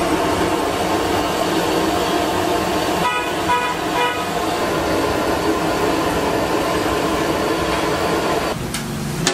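Steady loud background din with a horn beeping a few short times about three to four seconds in; the din stops suddenly near the end.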